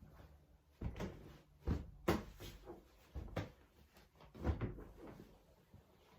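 A handful of sudden knocks and clunks, about five in a few seconds, as of household things being handled or shut.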